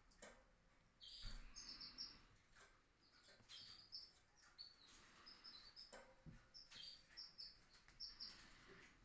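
Canaries chirping faintly: short, high cheeps in quick runs, repeated throughout, with a few soft knocks.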